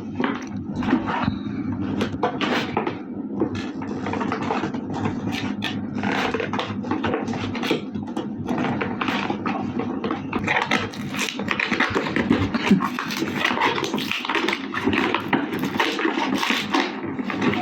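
Toy packaging being worked open by hand: a dense, irregular run of crackling, scraping and tearing from plastic and cardboard.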